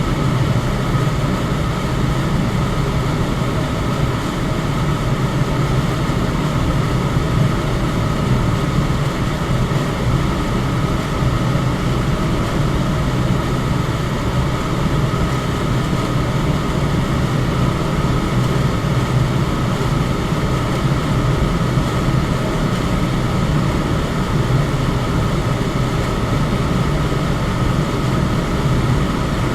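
Electric fan running steadily: a constant whooshing noise with a low hum and a faint steady higher tone.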